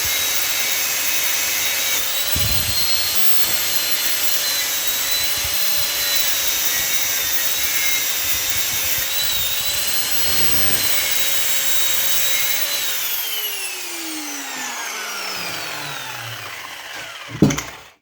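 Angle grinder with a cutting disc running steadily as it cuts through brass scrap, then switched off about thirteen seconds in, its pitch falling as the disc spins down. A sharp knock comes just before the end.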